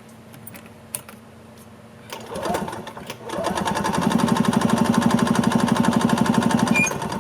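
The Yamaha G1 golf cart's two-stroke engine is cranked over by its starter-generator without starting: a short burst of cranking, then about three and a half seconds of steady, even chugging at about ten pulses a second. It is being spun for a compression test, and the compression proves okay but not the greatest.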